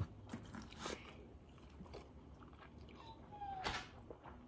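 Close-up chewing of fried food, with wet mouth clicks and smacks. About three seconds in, a puppy gives a brief, faint, falling whine.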